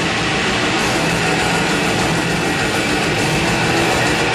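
Heavy metal band playing live and loud: distorted electric guitar and bass over drums, one dense unbroken wall of sound.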